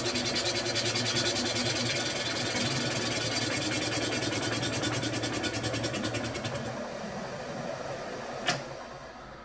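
Boring bar in a machine spindle cutting a large hole through a duplex stainless steel boiler shell, the cut pulsing evenly about five times a second. The cutting eases off about seven seconds in, and a single sharp click comes near the end.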